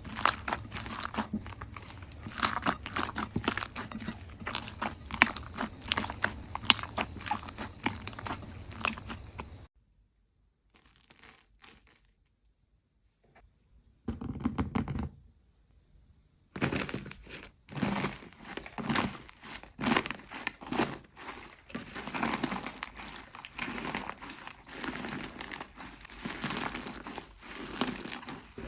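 Jelly slime being squished and pressed by hand, giving dense crackling and popping clicks. It drops to near silence about ten seconds in, with one short burst partway through the gap, and resumes about six seconds later.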